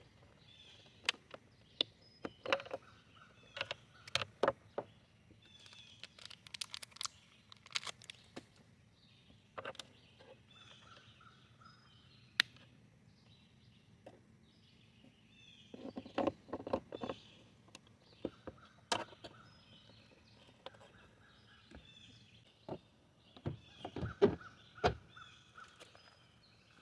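Scattered plastic clicks and knocks of hands working on a car's tail light and trunk trim during a turn-signal bulb swap, with two busier clusters of clicks in the second half. Birds chirp and call in the background.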